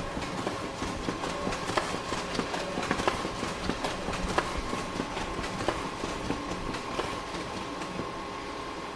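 Photocopier running: a steady mechanical whir with a thin high hum, broken by irregular clicks and clacks that thin out near the end.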